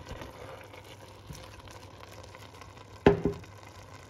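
Pot of spinach and minced beef simmering with a soft, steady sizzle. About three seconds in, two sharp knocks come close together with a short ring, a hard object striking the pot.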